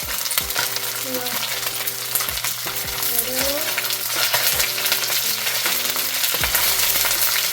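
Pieces of fish frying in hot oil in an iron wok, a steady sizzle and crackle as the skin browns.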